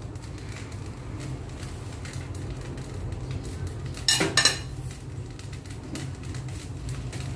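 A metal spatula clinks against the wok in a short cluster of metallic knocks about four seconds in, as it is set down to rest in the pan. Under it runs a steady low hum from the gas stove burner.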